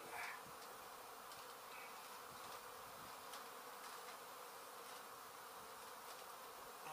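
A honey bee colony opened up during a cut-out, buzzing as a steady, dense hum, with a few faint clicks.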